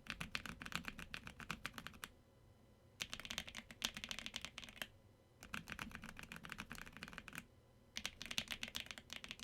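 Mechanical keyboard with Akko Bittersweet tactile switches on the top row and Dragon Breath switches on the rest, typed on in four quick runs of keystrokes with short pauses between them.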